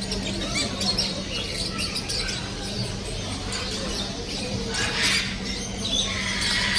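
Many caged small parrots, cockatiels and lovebirds, chirping and squawking with overlapping short calls, over a steady low hum.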